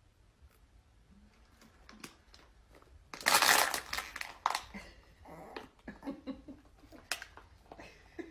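Thin plastic water bottle crackling and crinkling as it is drunk from, in irregular bursts, the loudest a little after three seconds in.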